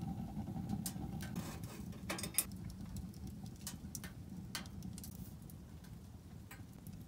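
Wood fire crackling in a small steel wood stove with a glass door: scattered sharp pops, the loudest a little over two seconds in, over a low steady rush.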